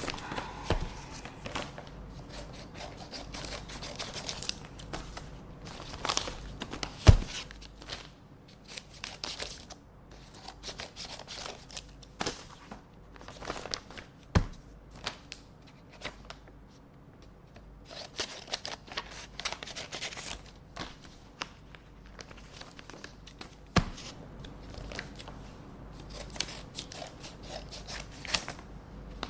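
Scissors snipping open paper envelopes, with paper tearing, rustling and crinkling as the letters are handled. A few sharp knocks stand out, the loudest about seven seconds in.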